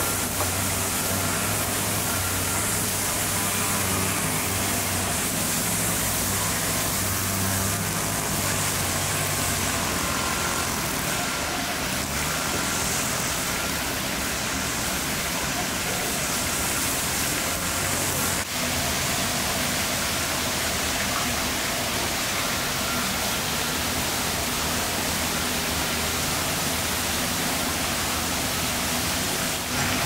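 Steady rushing hiss of a pond fountain's spray falling back onto the water, with a low hum underneath during roughly the first third.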